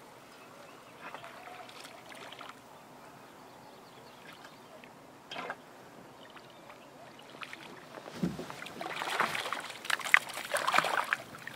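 Hooked trout splashing and thrashing at the water's surface beside the boat as it is reeled in. The splashing starts about eight seconds in and is loudest near the end, after a quieter stretch with a few small knocks.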